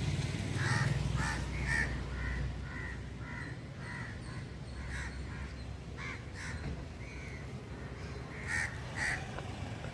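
Crows cawing over and over: a quick run of short caws, about two a second, for the first half, then scattered single caws, over a low background rumble.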